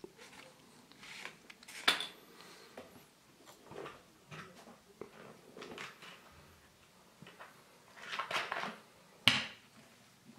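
Small hard-plastic Kinder Surprise toy parts being handled and fitted together. There is a sharp click about two seconds in and another near the end, with light taps and rustling between them.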